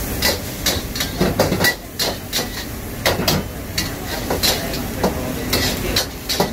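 A spatula clanking and scraping against a wok, about three sharp knocks a second, over the steady roar of a high gas flame and sizzling food as a stir-fry is tossed.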